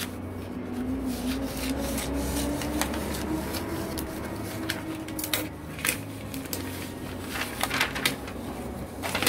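A large sheet of pattern paper rustling and crackling as it is handled, lifted and folded over, the crackles loudest in the second half. A steady low hum runs underneath.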